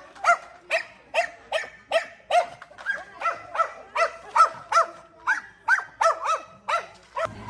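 A dog yapping over and over in short, high-pitched barks, about three a second, stopping just before the end.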